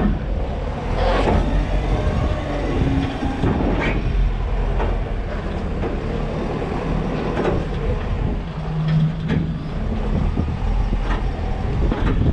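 JCB 531-70 telehandler's diesel engine running as the machine drives and turns, with several sharp clanks and rattles from the empty steel bucket.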